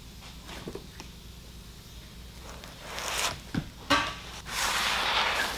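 Steel seat hardware of a 1968 Dodge Charger bucket seat being worked by hand: two sharp metal clanks about three and a half and four seconds in, the second the loudest, then about a second of metal scraping.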